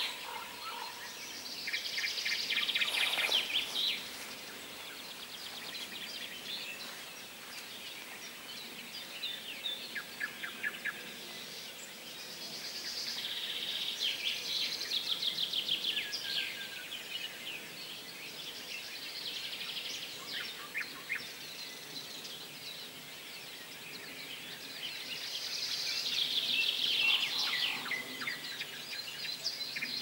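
A songbird sings a fast trilled phrase three times, about every twelve seconds, with fainter short bird calls between, over a steady background hiss.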